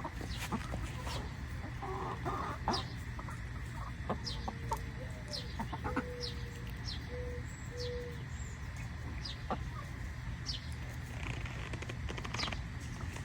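Backyard chickens clucking softly while feeding on a handful of frozen peas, with a few short low clucks around the middle and brief high chirps throughout.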